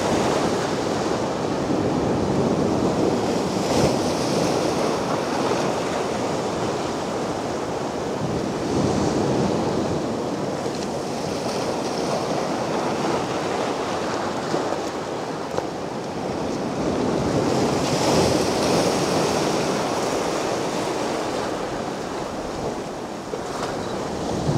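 Sea waves breaking and washing onto a beach, the surf swelling and easing every few seconds.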